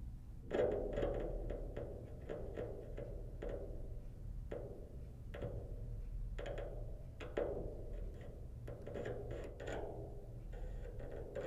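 Small loudspeaker driver lying on a bass drum head, driven by the exposed circuit board of a BOSS DD-6 delay pedal. It sets off an irregular string of clicks and taps through the drumhead, starting about half a second in, over a low steady hum.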